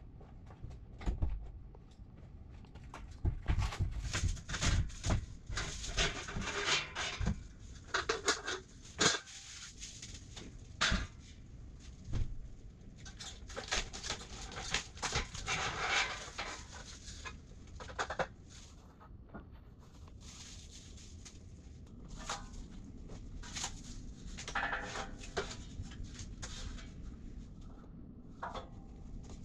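Irregular clanks, knocks and scraping of steel shelving parts being handled and set in place: the welded upright frames and beams of a Husky four-shelf storage unit. It is busiest in the first half, eases off, then picks up again with another cluster of knocks and scrapes.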